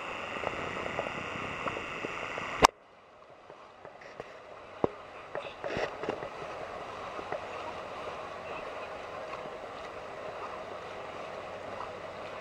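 Tour boat's engine running steadily over water sloshing at the hull. About two and a half seconds in, a sharp click and the sound drops suddenly, then settles back to a quieter steady hum with a few faint ticks.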